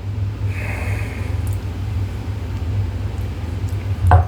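A steady low hum, with a short faint hiss about half a second in and a brief knock near the end.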